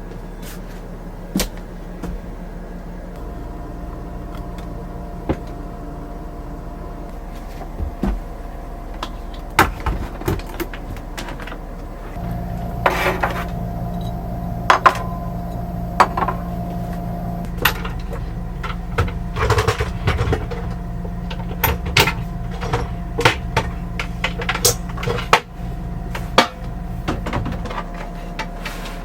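Cupboard doors and small objects clicking and knocking over a steady electrical hum. A second, louder appliance hum comes on partway through and cuts off near the end.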